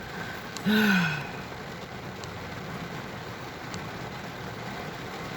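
A short voiced sound falling in pitch about a second in, then a steady background of a car engine running with rain falling.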